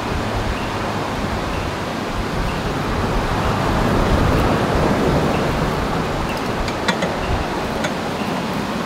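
Steady rushing noise of a large electric fan blowing air onto a charcoal fire, with a few sharp crackles from the burning charcoal past halfway.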